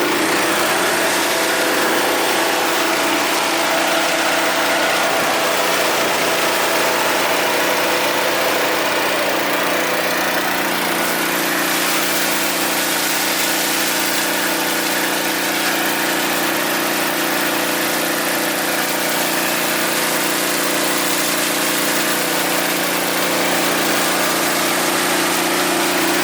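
An engine running steadily at an even idle, with no change in speed.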